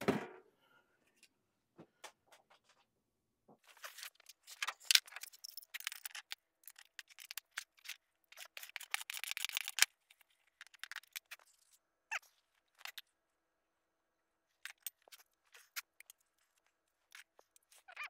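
Hand tools and metal parts clicking, clinking and scraping as they are handled, in two busy spells in the first half and then scattered clicks.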